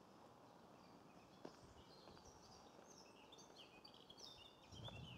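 Faint birdsong over near silence: a small songbird gives a run of short, high notes in quick succession through the second half. A single faint click comes about a second and a half in, and a soft low rumble just before the end.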